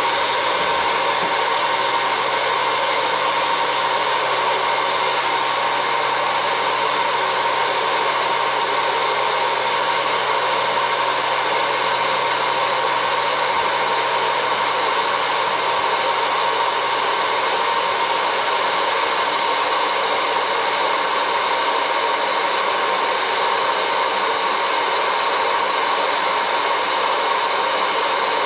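Vintage Wear-Ever Popcorn Pumper electric hot-air popcorn popper running, its blower fan pushing air in a steady whoosh with a constant hum in it.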